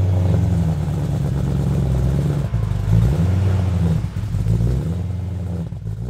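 BMW E90 M3's S65 V8 fast-idling loudly in its cold-start program, which raises engine speed and fuelling to heat the catalytic converters. The engine speed wavers up and down, the fluctuation the owner calls a rough idle.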